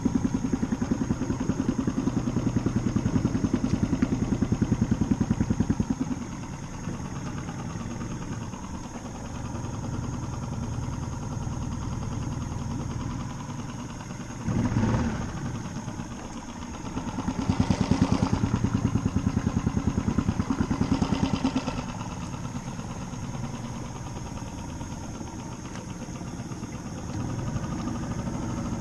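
Small 3.5-horsepower four-stroke outboard motor running. It is louder for the first several seconds, drops back, picks up again for a few seconds past the middle, then settles lower.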